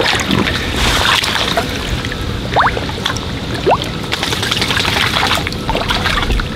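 Water splashing and sloshing around the hands as a large mirror carp is released in shallow water, with small sharp splashes throughout.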